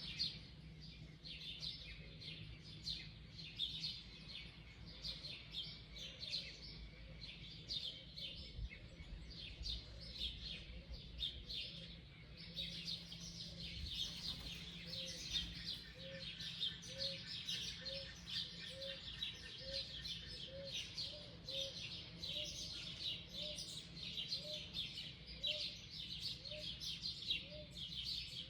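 Many wild birds chirping and singing together in a dawn chorus, with dense overlapping high chirps. A soft low note repeats about one and a half times a second from about six seconds in.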